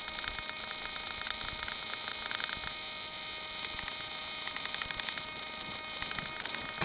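Faint, steady electrical hum with fast, faint ticking from the RC plane's onboard electronics, the plane lying nose-down in snow with its motor stopped after a crash.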